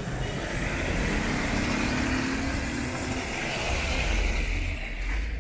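A motor vehicle driving past on a wet road: a low engine rumble under a hiss of tyres. It builds to its loudest about four seconds in and falls away sharply at the end.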